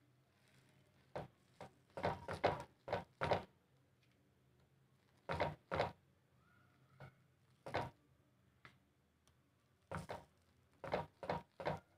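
Metal spoon scraping and tapping against a dosa in a pan as chutney is spread over it: short scrapes and taps in small clusters, with quiet gaps between.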